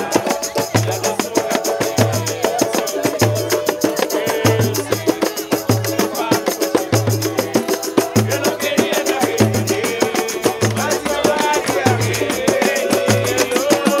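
Live samba played by a roda: a low drum beating about once a second under a pandeiro and strummed guitar, cavaquinho and banjo, with voices singing along.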